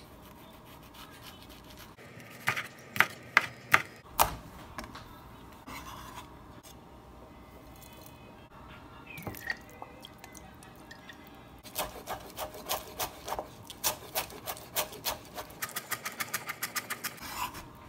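Santoku knife chopping on a bamboo cutting board. A handful of sharp knocks come a few seconds in as green chillies are sliced. Later there is a long run of quick chops through cilantro, fastest near the end.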